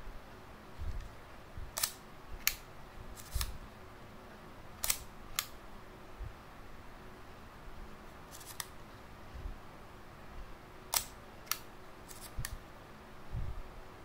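Copal leaf shutter of a Yashicaflex twin-lens reflex camera being cocked and fired over and over: sharp mechanical clicks, mostly in pairs about half a second apart, with soft handling thumps in between.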